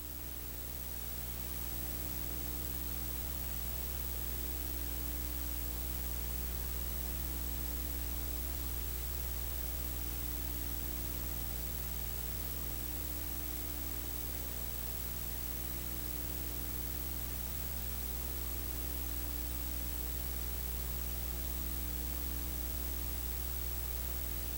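Steady electrical mains hum with a constant hiss over it.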